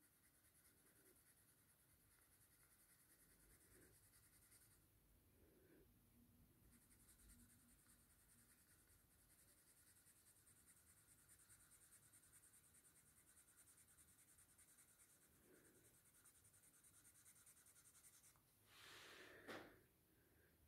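Near silence with the faint scratch of a graphite pencil shading on paper, going over the same dark patch again to deepen it. A slightly louder rub comes briefly near the end.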